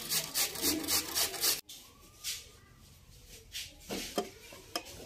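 Potato being grated on a metal box grater: quick rasping strokes, several a second, which cut off abruptly about a second and a half in, leaving a few faint clicks.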